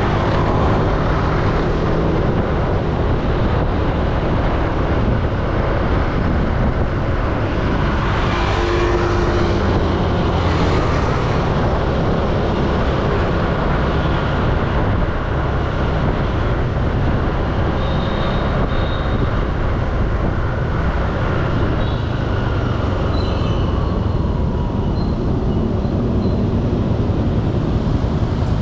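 Riding noise from a motor scooter at about 30 km/h in city traffic: steady wind rush on the microphone with engine and tyre noise underneath. The hiss eases near the end as the scooter slows to a stop.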